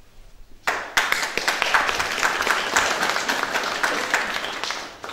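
Audience applauding: clapping starts abruptly under a second in, holds steady, and fades out near the end.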